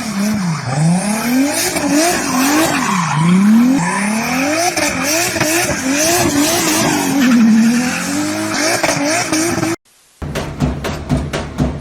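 Car engine revving up and down over and over, its pitch climbing and dropping in quick sweeps, with tyre squeal over it; it cuts off suddenly near the end.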